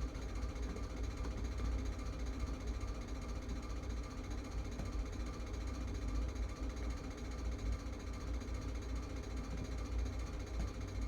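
Steady low-pitched hum with a slight buzz, unchanging throughout.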